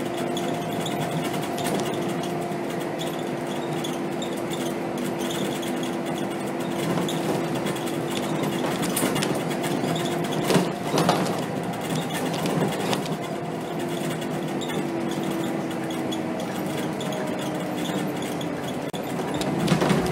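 Interior of a Scania K270 city bus on the move: a steady engine and drivetrain hum with a steady whine over road noise. A few sharp rattles and knocks come about ten to eleven seconds in.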